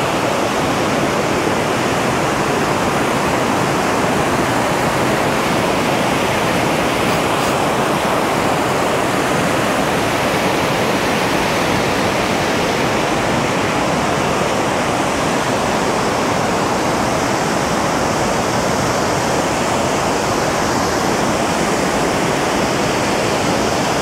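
Lower Gooseberry Falls pouring: a steady, even rush of falling water that holds unchanged throughout.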